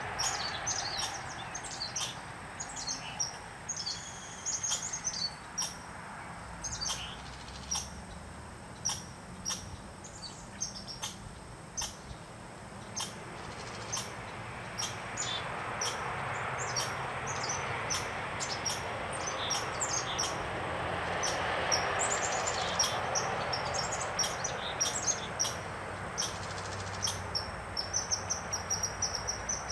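Small songbirds chirping, many short high calls scattered throughout, over a rushing background noise that swells in the middle. Near the end a fast, even run of high chips.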